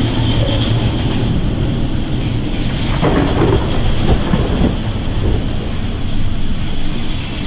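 Storm noise at sea: wind buffeting the microphone over rushing, crashing seawater, with a heavy low rumble and louder surges about three to five seconds in.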